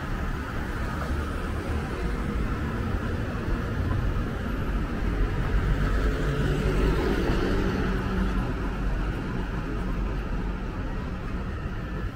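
Street traffic: steady road noise from passing vehicles, with one vehicle's engine growing louder and passing in the middle before fading.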